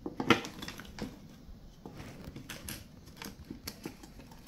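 Plastic housing parts of a Nikai steam iron clicking and knocking as they are handled and fitted back together. There is a sharper click a moment in, then scattered lighter taps.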